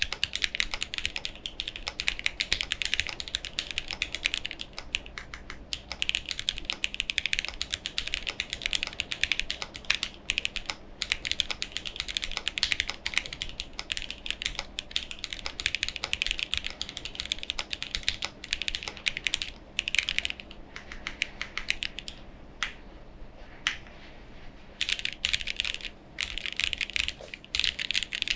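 Fast, continuous typing on a mechanical keyboard with Gateron Ink Black linear switches and GMK Norse keycaps, with no foam in the case, giving a dense run of sharp key clacks. The typing pauses briefly a few times, longest about twenty seconds in.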